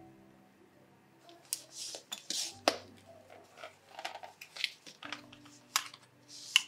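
Leather ever-ready camera case being opened by hand: the press stud unsnaps and the stiff leather flap rubs as it is lifted off the camera, with a run of sharp clicks and snaps.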